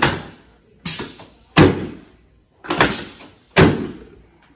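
A run of sharp thuds from a chiropractic adjustment, about one a second, each with a short ringing tail.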